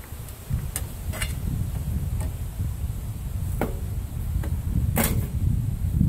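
Thin sheet-steel outer jacket of a tank water heater being bent and pulled off by hand. It gives a handful of sharp metallic clicks and clanks, the louder ones about three and a half and five seconds in ringing briefly, under a low rumble.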